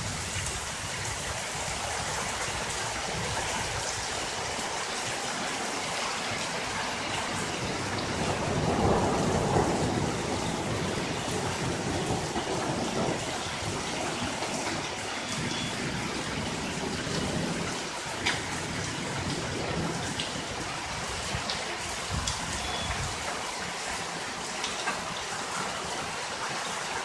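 Heavy rain pouring down steadily in a thunderstorm, with a low rumble of thunder swelling for a few seconds about a third of the way in.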